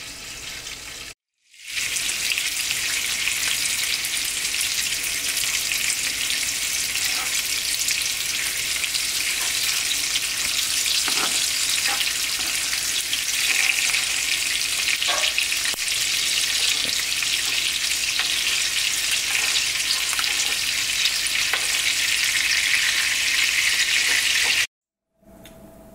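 Ground-beef mini seekh kebabs sizzling steadily in a frying pan, a dense frying hiss with a few small pops. The sizzle starts after a brief gap about a second in and cuts off suddenly shortly before the end.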